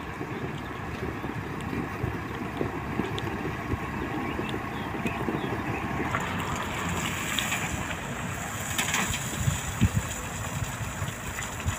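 Motor grader's diesel engine running while it spreads gravel, with wind rumbling on the microphone. About halfway through, the sound changes to a dump truck tipping a load of gravel.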